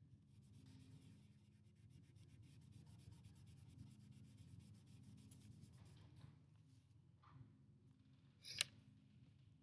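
Faint scratching of a charcoal stick rubbed in quick strokes across paper for about six seconds, over a low steady hum, then a single sharp click near the end.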